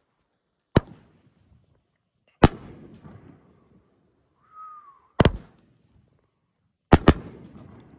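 1.4 pro-level firework cake going off: sharp bangs, two single ones and then two quick double bangs, each of the louder ones followed by a short rumbling echo.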